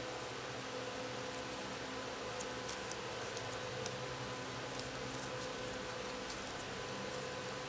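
Sheet of paper being folded and creased by hand, with faint, scattered crinkles and crackles over a steady hiss and low electrical hum.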